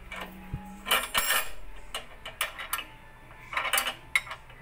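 Steel tools clinking and clanking in a few short clusters as a scissor jack's crank rod is worked and a lug wrench is handled.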